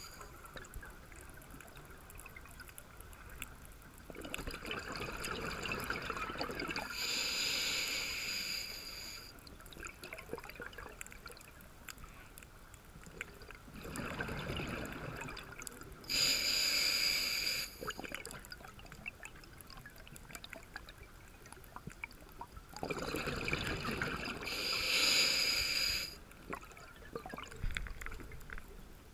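Scuba diver breathing through a regulator underwater: three breaths about nine seconds apart, each a burble of exhaled bubbles followed by the hiss of the inhale.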